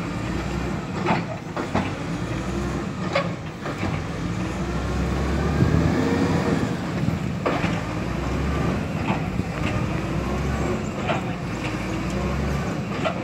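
Diesel dump truck engines revving hard and labouring as one truck strains to pull another out of deep mud, the pitch rising and falling with the throttle. Several sharp knocks break in over the engine noise.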